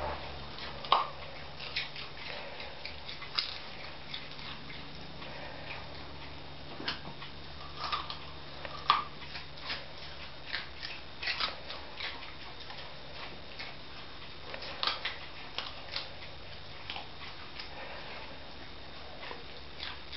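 Schipperkes chewing raw carrots: irregular crisp crunches and clicks of teeth on carrot, a few louder snaps among them.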